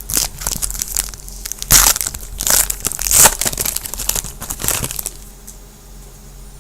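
A trading-card pack wrapper being crinkled and torn open by hand: a run of crackling, crumpling bursts lasting about five seconds, loudest about two and three seconds in.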